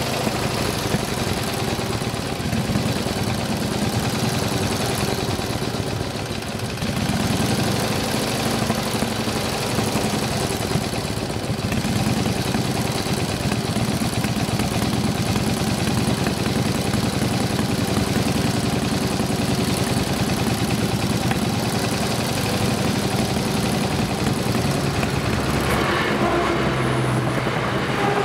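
Motorcycle engine idling steadily close by. In the last couple of seconds a diesel passenger train comes in, passing over the crossing.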